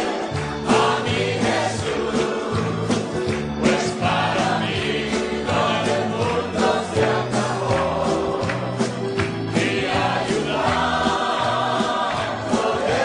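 Background music: a choir singing a gospel-style song over a bass line and a steady drum beat.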